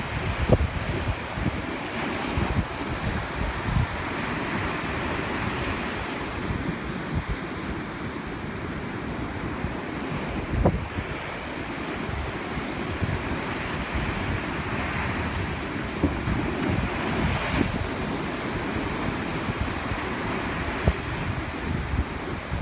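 Ocean surf breaking against rocks and washing up a sand beach in a steady wash, with gusty wind rumbling on the microphone.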